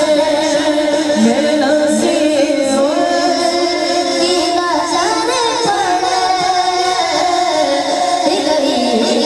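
A boy singing a naat, an Urdu devotional poem, into a microphone, with long held notes that slide and waver in pitch.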